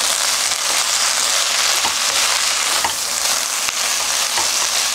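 Garlic scapes and their seasoning sauce sizzling steadily in a hot wok while being tossed with two wooden spatulas, with a few light knocks of the spatulas against the pan.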